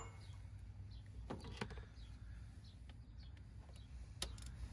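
A few faint, sharp metallic clicks of a ratchet and socket being fitted onto a cylinder head bolt, one pair about a second and a half in and one near the end. Faint bird chirps in the background.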